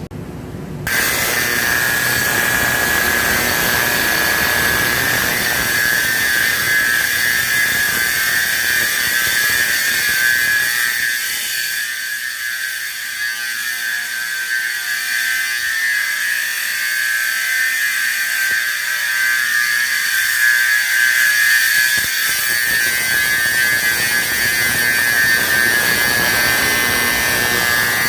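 Simplex 4050 12VAC fire alarm horn sounding continuously, a loud, harsh, buzzing blare that starts about a second in and runs without a break until it cuts off suddenly.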